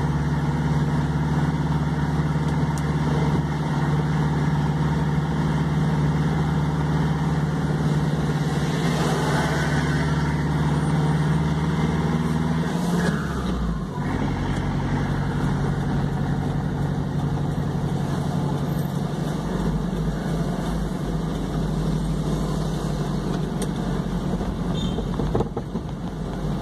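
Truck engine running steadily. About thirteen seconds in its pitch falls as the revs drop, and it then runs on at a lower, steady pitch.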